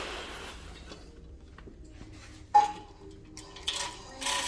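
Window drapes and a roller shade being opened by hand: a rustle of fabric at the start, a sharp click about two and a half seconds in and a few lighter clicks, then a rattle as the shade starts going up near the end.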